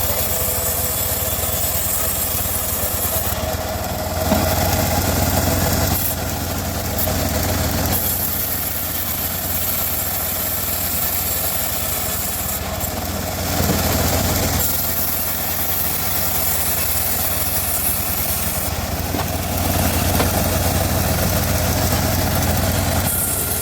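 Engine of a homemade bandsaw sawmill running steadily with a constant low hum. It swells louder for a second or two three times: about four seconds in, near the middle, and about twenty seconds in.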